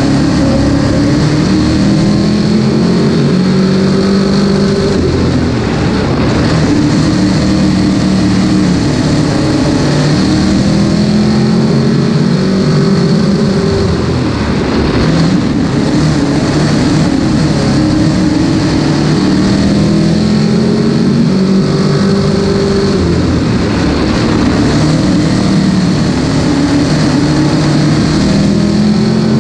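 Dirt modified race car's V8 engine at racing speed, heard from inside the cockpit. Its pitch climbs and falls back about every four to five seconds as the driver gets on and off the throttle around the track.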